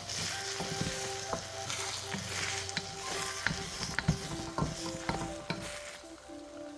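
Eggs sizzling in hot oil in a wok as they are stirred and scrambled, with repeated clicks and scrapes of a utensil against the wok. The sizzle dies down near the end.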